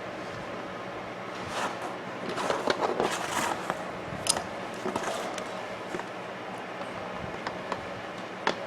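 Hand-handling noises of a quartz clock movement being fitted into its clock case: scraping and rustling for a couple of seconds, with small sharp clicks of plastic and metal parts, and a few more clicks near the end.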